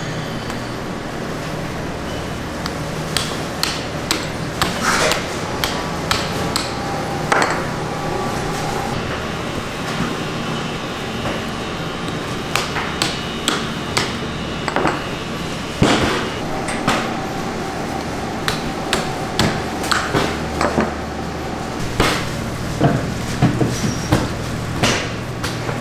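Meat cleavers chopping through pig carcass bones (ribs and backbone) on plastic cutting boards: irregular sharp chops, sparse at first and coming thicker in the second half, over a steady low hum.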